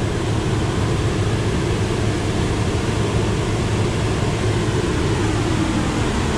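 Steady rushing roar of a waterfall, an even wash of falling water with no breaks.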